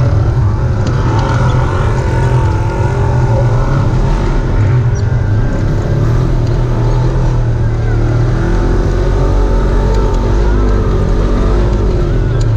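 Off-road vehicle's engine running under way, its pitch drifting up and down with the throttle over a steady low rumble.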